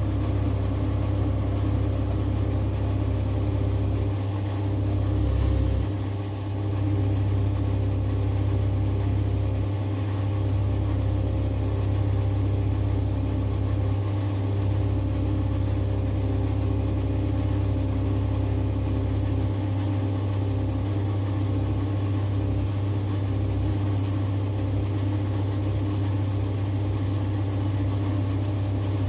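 Fuel dispenser's pump running with a steady hum while diesel is pumped into a car's tank.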